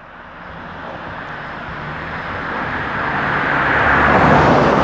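A car approaching along the road, its sound growing steadily louder and reaching its loudest near the end.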